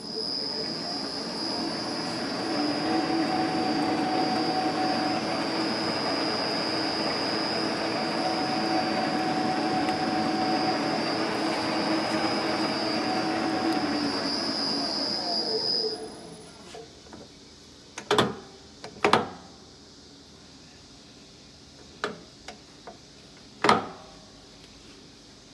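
Enterprise metal lathe starting up and running with a steady high whine. It is then shut off and coasts down, its pitch falling, to a stop about 16 seconds in. A few sharp metal clunks follow.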